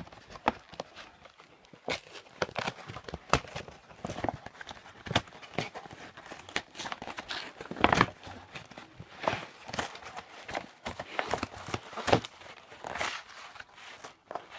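Package being unpacked by hand: irregular rustling and crinkling of packing material with scattered knocks and clicks, the loudest about eight seconds in.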